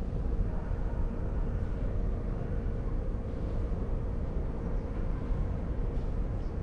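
Steady low outdoor rumble with a faint, even hum above it.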